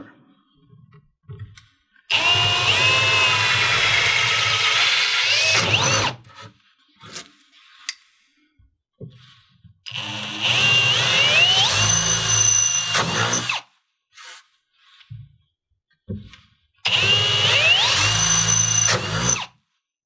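Cordless drill boring holes through the acrylic deck of a bathtub: three runs of about four, four and three seconds. The motor's pitch slides up and down within each run as the bit loads.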